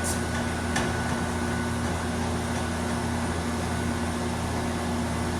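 Steady mechanical hum of a fan-type appliance, with two light clicks within the first second.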